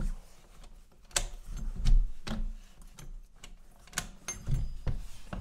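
Balcony door being opened: a run of sharp clicks and knocks from the handle and latch, with a few dull low thumps.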